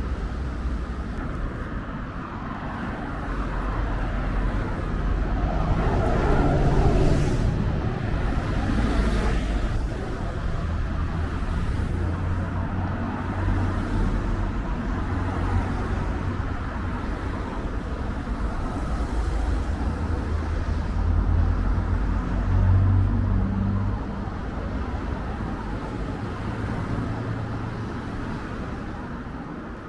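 City street traffic: cars and other road vehicles running past with a steady rumble. It swells as vehicles pass close, about a quarter of the way in and again about three quarters of the way through.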